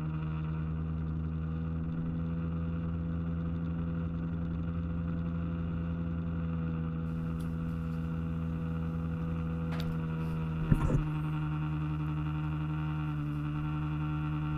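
A small aluminum boat's motor running steadily at cruising speed with an even drone, the hull hissing through the water. A short cluster of knocks about eleven seconds in, like the hull slapping a wave.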